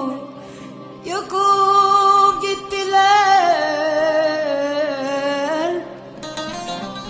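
Man singing a long, ornamented Turkish vocal line with a wavering pitch over musical backing. The voice swells in about a second in and drops away near the end.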